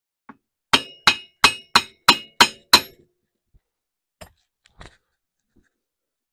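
Seven sharp metal-on-metal knocks in a quick, even run, about three a second, each with a short ring, followed a second or so later by a few faint clicks. They come from steel hydraulic cylinder parts, the rod and its gland, being worked together during the reseal.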